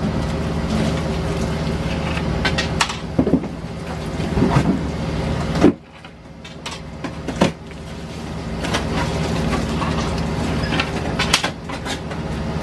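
Steady low mechanical hum with scattered light knocks, clicks and rustles as grilled sea bream, with metal skewers and foil-wrapped fins, are handled on a table. The hum drops out suddenly about halfway and builds back over a couple of seconds.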